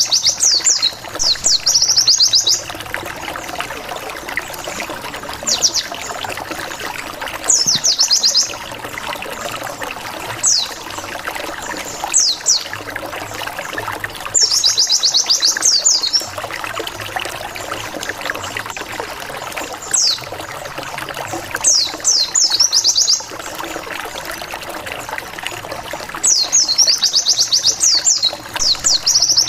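Pleci (white-eye) song used as a lure call: bursts of rapid, high "wit wit wit" notes, each note a quick downward sweep, lasting a second or two and repeating every few seconds over a steady rushing noise.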